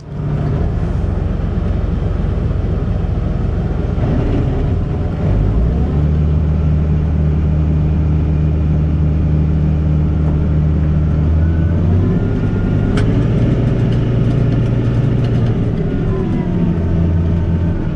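Tractor engine running steadily with the PTO-driven mower. Its pitch shifts about five seconds in and again near twelve seconds.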